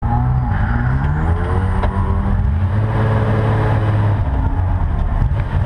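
Porsche 914/6's air-cooled flat-six engine running while the car sits stationary, heard from inside the cabin; the revs shift a little at first, then hold steady.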